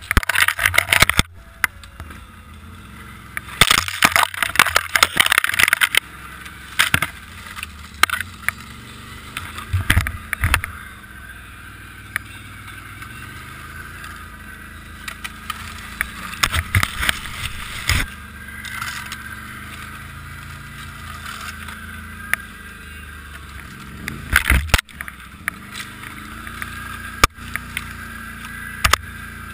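Snowmobile engine running steadily while the machine pushes through snow-laden branches. Loud crackling, swishing bursts of branches and snow sweeping over the machine and the rider's helmet come and go: right at the start, again from about four to six seconds in, and several more times later.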